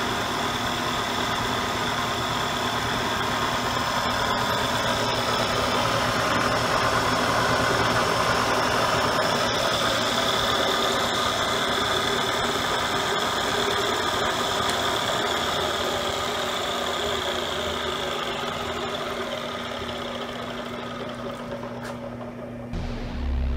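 Hartford vertical milling machine running under power: a steady motor-and-drive hum with a constant high whine. Music starts in just before the end.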